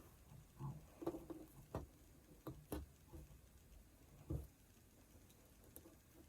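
Faint, scattered small taps and rustles of hands handling fabric and thread while tying off the thread ends in a knot by hand. The clearest tap comes about four seconds in.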